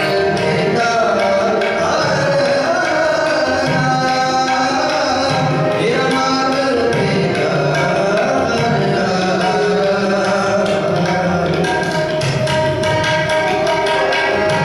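Sikh shabad kirtan: two harmoniums sustaining chords and melody over tabla strokes, with voices singing the hymn.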